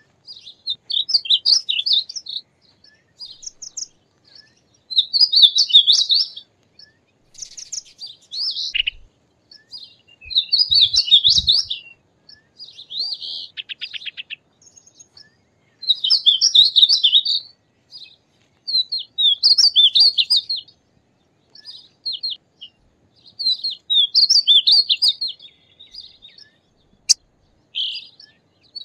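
Painted bunting singing: a high, rapid warbled phrase of about one to two seconds, repeated over and over with short pauses between.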